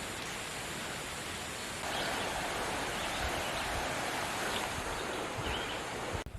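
Steady rushing of a cascading mountain brook, growing a little louder about two seconds in.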